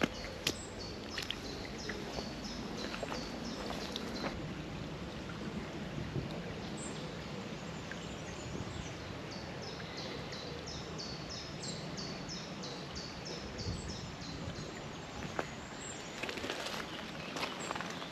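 Woodland ambience with a small songbird singing a long series of short, high notes, several a second, in two runs, the second longer.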